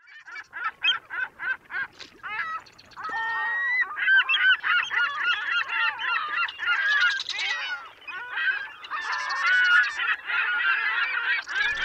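A flock of birds honking and calling over one another. A quick run of repeated calls opens it, then many overlapping calls crowd in from about three seconds in.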